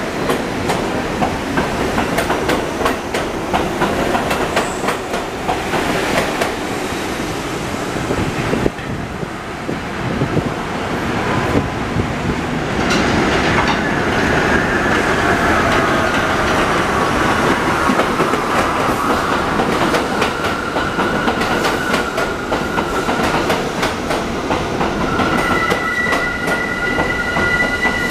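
R62A subway trains on the elevated 1 line running through the station, their wheels clicking rapidly over the rail joints. A high wheel squeal falls in pitch about halfway through, and near the end it settles into two steady high squeal tones.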